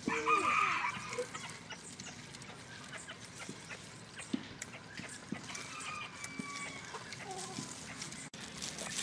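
A chicken gives a loud, harsh call about a second long right at the start, followed later by a fainter call around six seconds in.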